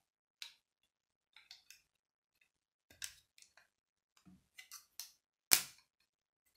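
Plastic Lego pieces clicking and clacking as they are pressed together and handled: a scatter of short clicks, the loudest about five and a half seconds in.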